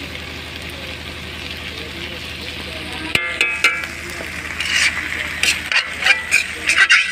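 Fish pieces frying and sizzling in an iron kadhai. From about three seconds in, a metal ladle scrapes and clinks against the pan as the fish is stirred, in a run of sharp, squeaky strokes.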